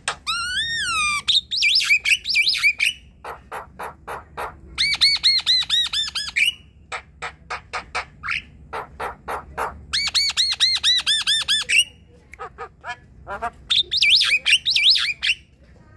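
Javan myna singing a varied, chattering song: whistled glides, then two long runs of fast repeated squawky notes, about eight a second, with sharp clicking notes between them.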